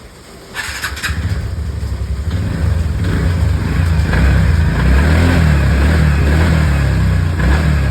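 TVS Ntorq scooter's single-cylinder engine started about a second in and then running, its pitch rising and falling a little with light throttle. This is the engine just rebuilt with a new crank-rod (connecting-rod) bearing, the worn one having caused its earlier noise.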